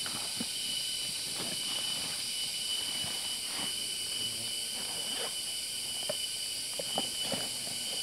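Steady high-pitched drone of insects in forest, with scattered light rustles and knocks from a canvas backpack being handled and feet shifting on dry leaf litter.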